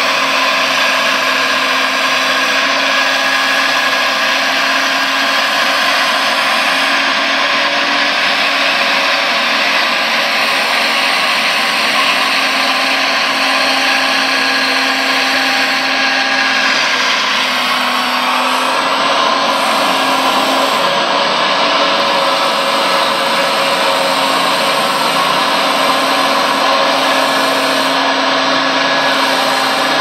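Radio-controlled scale model Liebherr 956 hydraulic excavator at work: its electric hydraulic pump and motors whir steadily and loudly, and the tone shifts a little over halfway through as the arm and bucket movements change.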